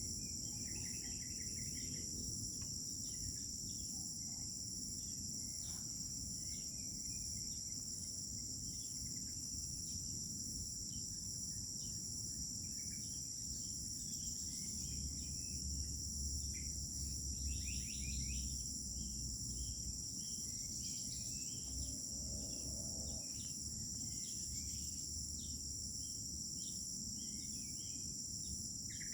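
Steady, high-pitched chorus of crickets with scattered short bird chirps and calls over it. A low rumble comes in for a few seconds about halfway through.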